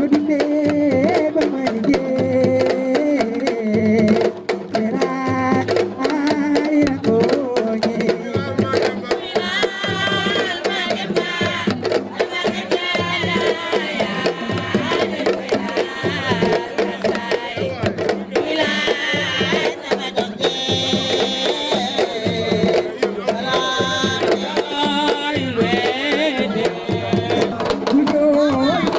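Music of a Senegalese Wolof children's song: drums keep a steady beat under a melody.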